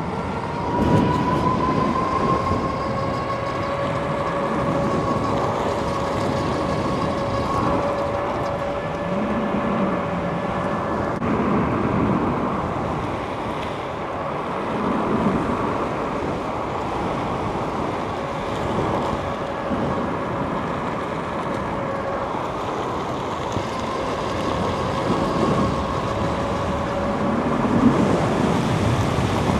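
Electric bike motor whining while riding, its pitch rising as it speeds up at the start and then holding steady, over a continuous rumble of wind and road noise.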